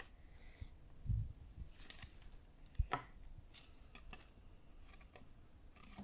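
Plastic toy robot parts being handled: a few light knocks and clicks, with a low thump about a second in and a sharper click near the middle.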